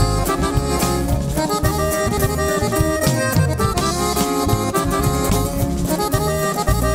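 Norteño band playing an instrumental passage with no singing: button accordion carrying the melody over bass and drums.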